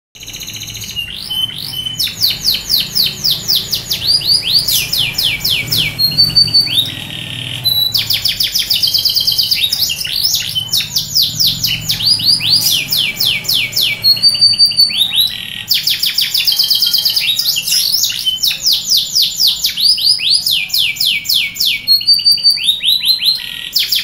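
Yorkshire canary singing a long song of fast trills, broken by short whistled notes and a few brief pauses.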